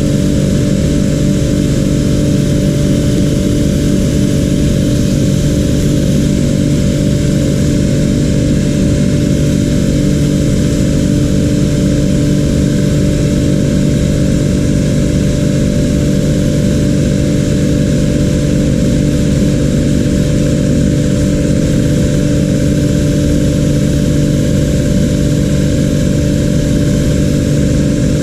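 A loud, steady mechanical drone with a low hum that does not change.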